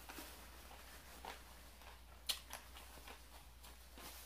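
Faint closed-mouth chewing of salad and chicken, with a few soft wet mouth clicks, the sharpest about two seconds in.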